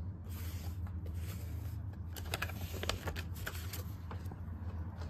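Handling noise: soft rustling and a cluster of light clicks from about two to three and a half seconds in, over a steady low hum.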